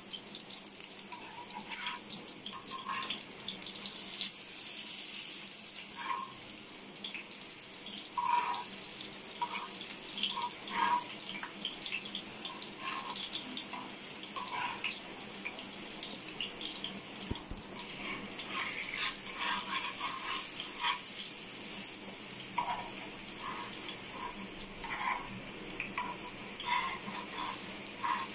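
Pakoras shallow-frying in hot oil on a large tawa: a steady sizzle, with short clicks and scrapes of metal tongs and a spatula as they are turned over.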